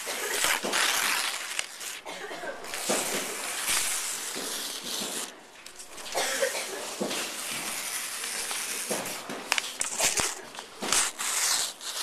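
Many people making everyday library noises together as a conducted piece: hiss-like, rustling sounds that swell and break off every second or two, with a few sharp clicks a little after the middle.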